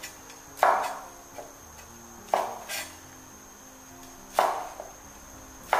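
Chinese cleaver slicing dried red dates (jujubes) on a wooden chopping board: four separate chops, each a sharp knock of the blade against the board, about one and a half to two seconds apart.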